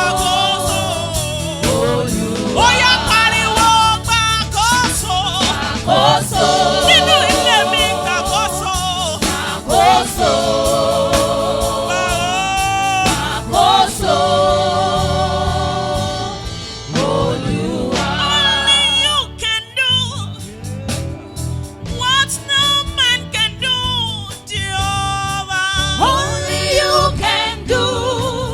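Gospel worship song: voices singing held, wavering melodic lines over instrumental backing with a steady beat.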